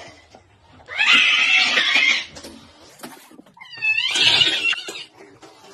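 A cat's angry yowling hisses, two outbursts of about a second each, a defensive display at its own reflection in a mirror.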